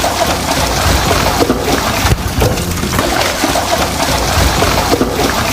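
Washing machine running, water sloshing and splashing in the turning drum.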